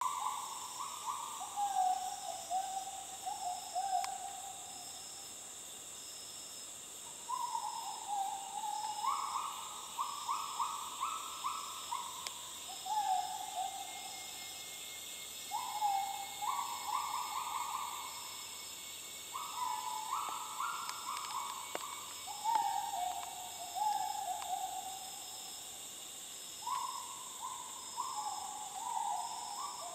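Bornean gibbons calling: repeated phrases of quick hooting notes that step upward in pitch, each phrase a few seconds long and starting again every few seconds, over a steady high-pitched hiss.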